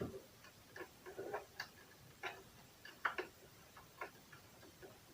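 Faint, irregular small clicks and ticks of hands working the needle and needle clamp of a sewing machine as the needle is taken out.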